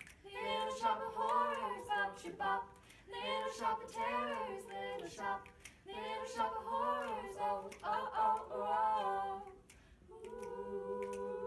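A small group of young voices singing together a cappella, keeping the beat with their hands, then holding one long note near the end.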